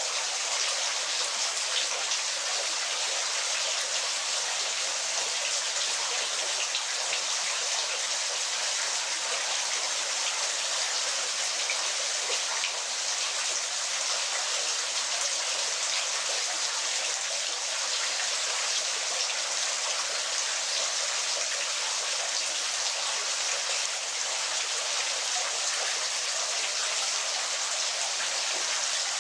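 Waterfall: a steady, unbroken rush of falling, splashing water, bright and hissy with no deep rumble.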